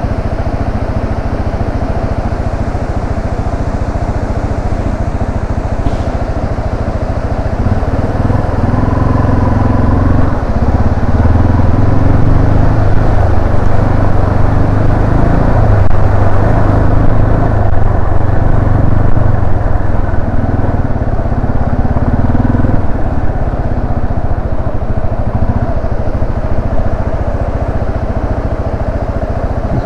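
Yamaha Serow 250's air-cooled single-cylinder engine running as the bike rides along a forest road, with wind on the microphone. The engine gets louder for a stretch in the middle, from about eight seconds in, and eases back down a few seconds before the end.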